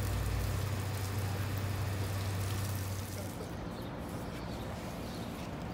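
Water spraying from a garden hose nozzle against a car's body and glass, a steady hiss with a low hum under it, cutting off about three seconds in.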